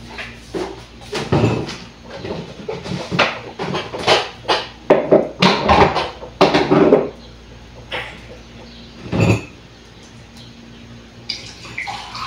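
Irregular knocks and clatter of kitchen things being handled: a cupboard, cups and containers set down and moved, most of it in the first seven seconds, with one more knock a couple of seconds later. Near the end a softer hiss begins as water is poured from a vacuum flask into a mug.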